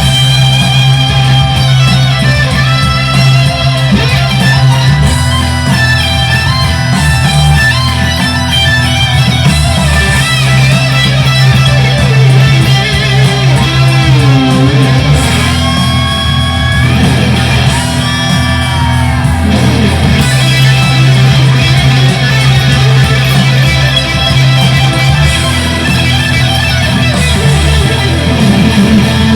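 Fender Stratocaster electric guitar played through a Boss Katana amplifier, improvising over held low notes, with notes sliding up and down in pitch about halfway through.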